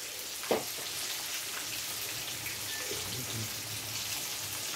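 Fish frying in a pan of hot oil: a steady crackling sizzle, with one brief louder sound about half a second in.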